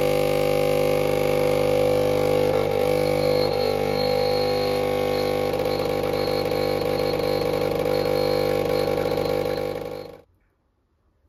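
Home espresso machine's pump buzzing steadily while it brews coffee into two cups, cutting off suddenly about ten seconds in.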